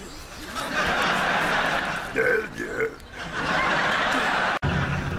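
A man's raspy, hoarse vocal noises: two long rough cries with a few short yelps between them. They cut off suddenly near the end, and music comes in.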